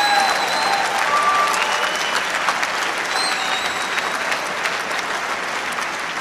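A large audience applauding, dense clapping with a few voices calling out over it. It is a reaction to a remark from the stage.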